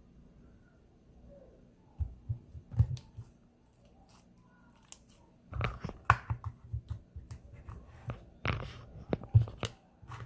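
Slime being squeezed and worked by hand, giving clusters of sharp crackling pops and clicks: a short burst about two seconds in, then a longer run from about halfway on.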